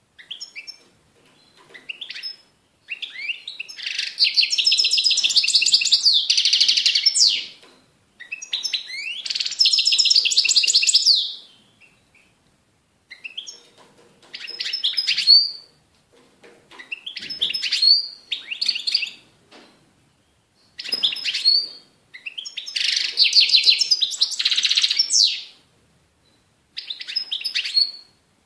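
European goldfinch singing: rapid twittering phrases a few seconds long, separated by short pauses, with shorter bursts of notes in between.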